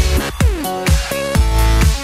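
Electronic dance music soundtrack with a heavy bass beat about twice a second and synth tones, with a falling synth sweep near the start.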